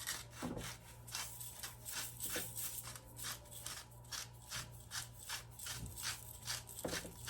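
Salt grinder being cranked by hand, crushing salt in a quick run of gritty, rasping strokes about three a second.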